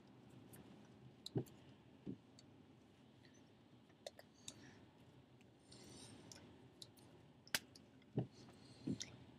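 Scattered small clicks and a few short, soft knocks over a quiet background, the loudest coming together near the end.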